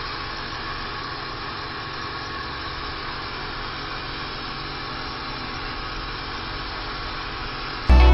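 Pressure washer running steadily, its high-pressure water jet hissing against a stone-block wall. Music cuts in just at the end.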